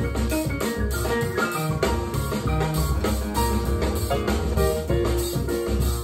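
Music with a steady beat, strong bass and melodic pitched notes played through a pair of Celef LS8 two-way stand-mounted speakers, picked up by a microphone in the room.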